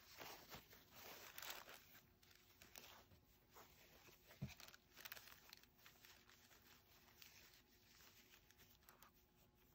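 Near silence with faint rustling of a crinkled fabric ribbon being handled and tied into a knot against a paper journal, with one soft bump about halfway.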